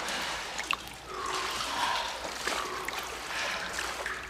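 Water trickling and splashing, with a few small gurgles.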